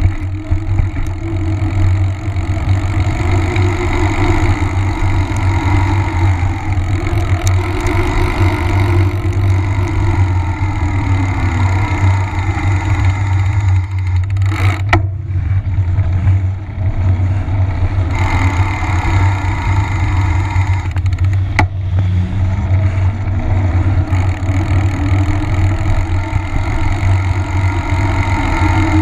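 Rolling noise from a mountain bike: the fat knobby tyre humming on asphalt, its pitch rising and falling with speed, over a steady low rumble of wind on the action camera's microphone. A sharp click comes about fifteen seconds in and another about twenty-one seconds in.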